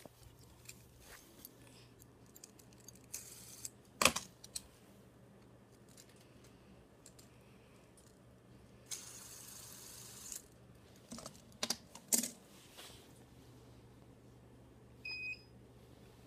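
Scattered light clicks and knocks of small plastic objects being handled, with one louder knock about four seconds in and a brief hiss in the middle. Near the end a hoverboard gives a short electronic beep as it powers on.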